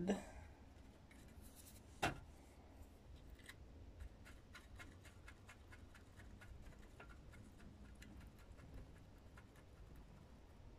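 Faint handling sounds of pinches of ground cannabis being put into the bottoms of paper cones in a plastic cone filler: one sharper click about two seconds in, then a run of light, irregular ticks.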